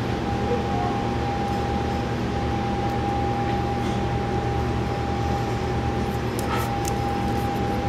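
Steady machine hum with a constant high whine over a hiss, and a few faint clicks near the end.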